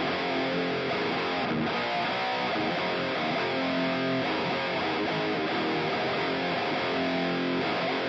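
Electric guitar played through a Mooer GE150 amp-modelling multi-effects unit on its 'Tri Rect Lead' factory preset: a high-gain, Rectifier-style lead tone with hall reverb, the notes held and changing without a break.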